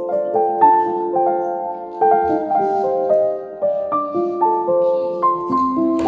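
Background piano music: a gentle melody of overlapping, sustained notes.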